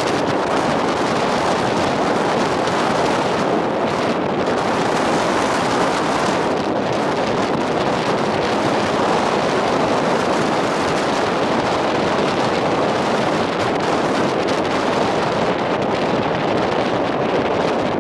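Jet blast from a Boeing 747's four engines at takeoff thrust: a loud, steady rush of jet noise and wind buffeting the microphone.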